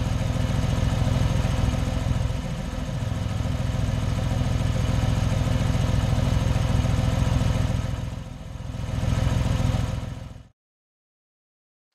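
A vehicle engine running steadily at idle, dipping and swelling once about eight to nine seconds in, then cutting off abruptly near the end.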